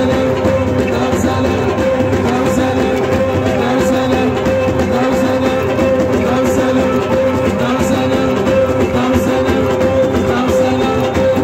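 Live southern Algerian folk band music: hand drums beaten with a crowd clapping along, over a steady held tone.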